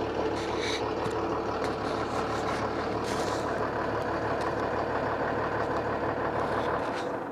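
Turbo-diesel pickup truck engine idling steadily, then shutting off near the end.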